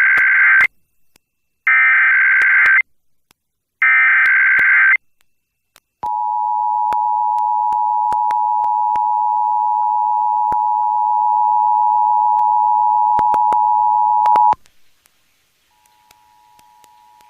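Emergency Alert System broadcast tones for a Required Monthly Test: three screeching SAME data header bursts of about a second each, then the two-tone attention signal (853 and 960 Hz) held steady for about eight seconds before cutting off abruptly. The same two tones return faintly near the end.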